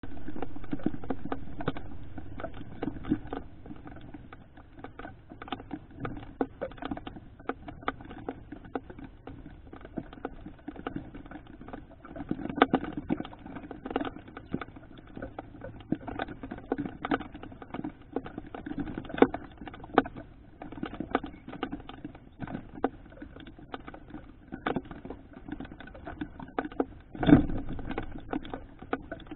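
Irregular light taps and clicks at a metal seed dish in the rain, from raindrops and a feeding brown thrasher. A louder knock comes near the end.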